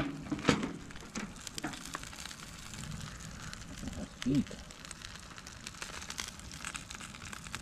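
Salmon and foil-wrapped asparagus sizzling and crackling on a charcoal kettle grill over hot briquettes: a steady hiss scattered with small pops. A brief vocal hum about four seconds in.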